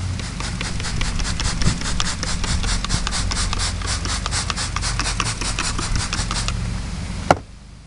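Fast back-and-forth scrubbing on cloth seat upholstery wet with degreaser, about five scratchy strokes a second, which stop about two-thirds of the way through; a single sharp click follows near the end.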